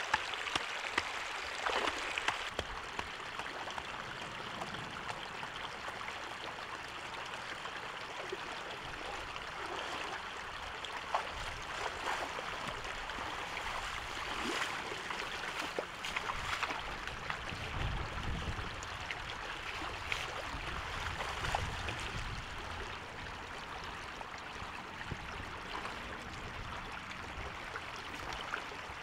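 Shallow floodwater rushing steadily through a gap in a bamboo fence, with occasional splashes from wading in the water.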